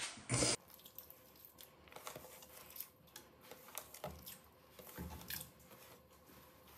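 Chopped red onion pushed off a wooden cutting board by hand into an aluminium cooking pot: faint scraping, rustling and small clicks of the pieces dropping in, after a brief loud knock about half a second in.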